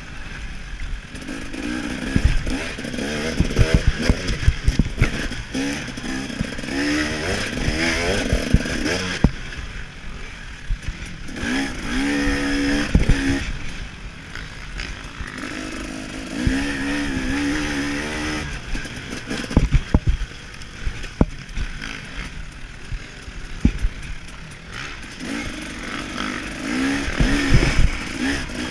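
KTM 300 XC-W two-stroke single-cylinder engine revving hard, its pitch climbing and dropping again and again between shifts and corners, with frequent sharp thumps and rough wind buffeting on the microphone.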